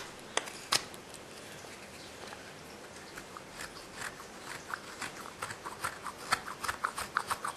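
Knife carving a birch kuksa handle: short slicing cuts shaving the wood. A few sharp clicks about a second in, then a run of quick crisp cuts that comes faster toward the end.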